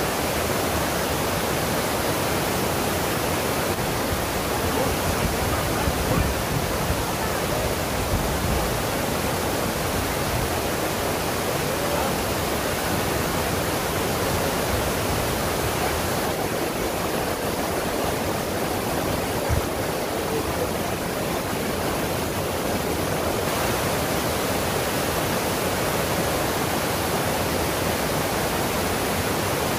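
Steady rush of a waterfall's falling water, with a brief low bump about two-thirds of the way through.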